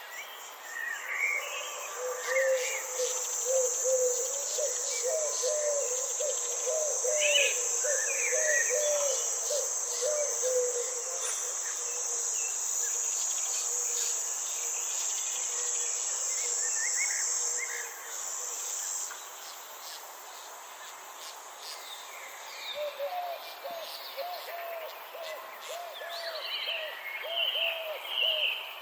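Garden ambience. A steady high-pitched insect buzz stops about two-thirds of the way through. Birds chirp and call throughout, and a low call of quickly repeated notes comes in two spells, near the start and again near the end.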